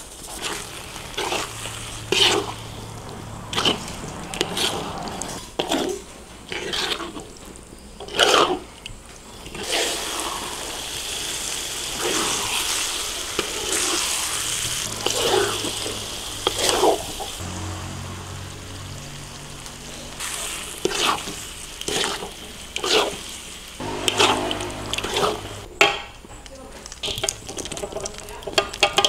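Kitchen sounds of water running and splashing, with repeated clatter of utensils and cookware, over background music with a stepping bass line.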